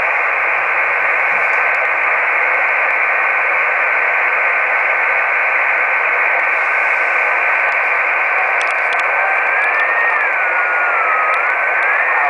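Steady hiss from an FT-817 receiver tuned to the VO-52 satellite downlink, narrowed to a voice-width band. A thin steady whistle sits in the hiss, and about nine seconds in it begins to slide up and down in pitch.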